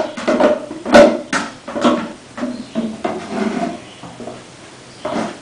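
Clicks, knocks and rubbing of plastic parts being handled as clear tubing is pushed and wound into the base of a PC water-cooling reservoir. Two sharp clicks stand out, at the start and about a second in, then the knocking thins to quieter rubbing near the end.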